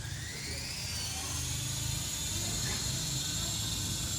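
An electric RC helicopter's brushless motor and rotor spinning up: a whine that rises in pitch over the first second or two, then holds steady, over a low hum.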